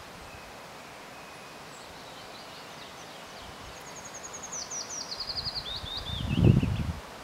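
A songbird sings one phrase of rapid trills that steps down in pitch and ends in a short flourish. Near the end a gust of wind rumbles on the microphone, the loudest sound.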